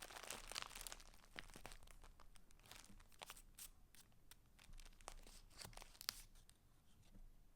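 Faint rustling and crinkling of the paper pages and pieces in a handmade junk journal being handled, denser in the first second or so, then scattered soft ticks and rustles.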